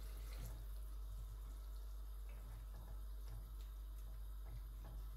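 Water poured from a plastic jug into a pot of vegetable stew, then a spoon stirring the pot with a few faint clicks, over a steady low hum.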